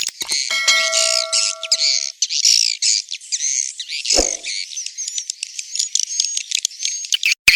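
Swiftlet call track used to lure swiftlets into a nesting house: dense, rapid twittering and chirping of swiftlets. A few steady tones sound under it for a second or so near the start. A brief low thud comes about four seconds in.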